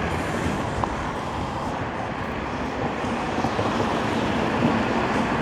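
Nami Klima electric scooter in motion: a steady rushing noise of travel, with no clear motor whine.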